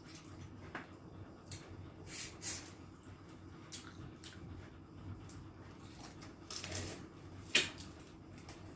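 Eating sounds close to the microphone: scattered chewing smacks and clicks of food being eaten and handled, the sharpest a single click about three-quarters of the way through.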